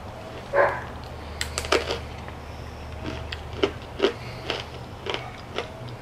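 Thin, crunchy baked potato sticks being bitten and chewed: a string of short, sharp crunches, with a quick cluster about one and a half seconds in. A low steady hum runs underneath.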